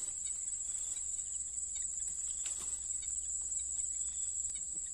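Steady high-pitched chorus of night insects, continuous and unbroken, with a few faint ticks.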